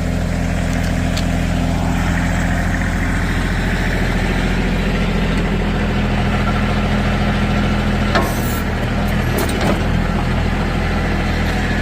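Backhoe tractor engine running steadily, with a few short knocks about eight to ten seconds in.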